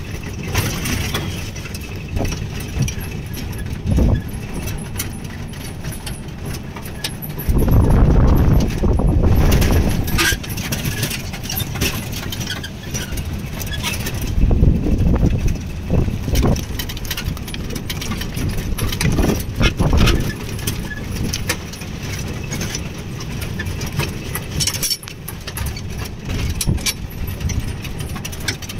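Old jeep driving along a hill road, heard from inside the open-sided cab: the engine and tyres give a continuous rumble while loose body fittings rattle and click. Louder low rumbling surges come and go, the strongest about eight seconds in.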